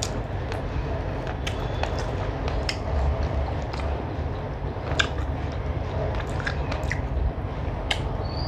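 Fingers squishing and mixing rice with chicken curry on a metal plate, with wet, sticky clicks scattered throughout, then a bite into a piece of chicken near the end. A steady low hum runs underneath.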